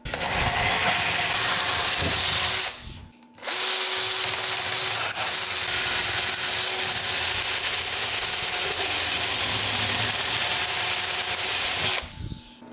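Cordless drill boring through the metal cylinder wall of a refrigeration compressor. It runs steadily, stops briefly about three seconds in, then runs again for about eight seconds before stopping near the end.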